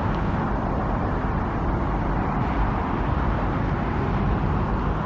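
Steady low outdoor rumble with no distinct events, like distant road traffic or wind on the microphone.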